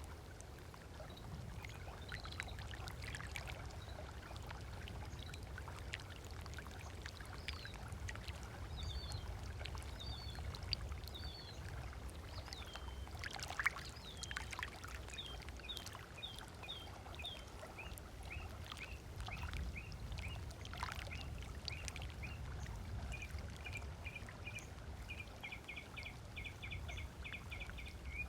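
Small waves lapping steadily on a sandy shore, with birds calling over it: scattered short chirps, then a fast run of repeated notes near the end. A single sharp click sounds about halfway through.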